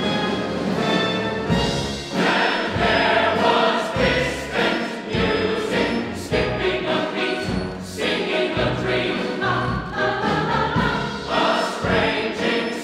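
Large chorus singing together with a full orchestra in a musical-theatre ensemble number, loud and rhythmic.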